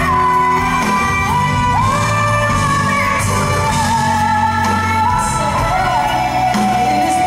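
A woman singing live into a handheld microphone over musical accompaniment, holding long notes that slide from one pitch to the next.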